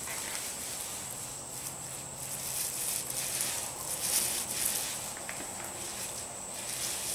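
Paint roller being worked back and forth through wet DuraTex roller-grade texture coating on a speaker cabinet, a sticky, crackling hiss that swells and eases with the strokes.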